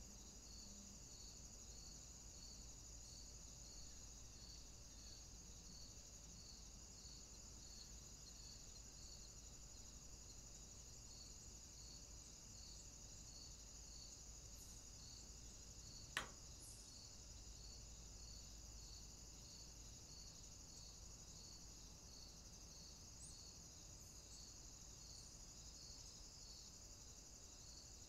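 Near silence, with a faint, high-pitched chirping that repeats evenly throughout, and a single sharp click a little past halfway.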